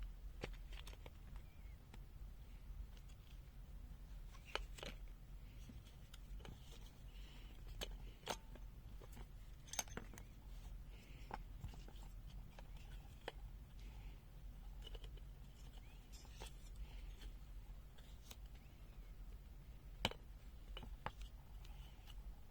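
Plastic case of a pocket multimeter being pried and unclipped: faint scattered clicks and small snaps, a few sharper than the rest, over a low steady hum.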